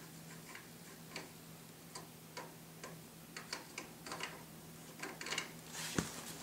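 Scattered light metallic clicks and taps of hand work at a motorcycle swing arm pivot, as a lock nut is fitted onto the pivot bolt, with a sharper click near the end. A faint steady hum runs underneath.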